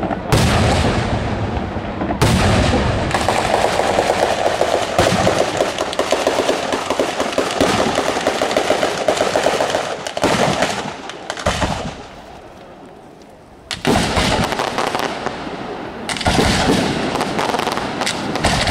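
Sanseverese-style daytime fireworks batteria: a rapid, continuous barrage of firecracker and aerial-bomb bangs, like machine-gun fire. It thins out briefly about two-thirds through, then a sharp bang restarts the barrage.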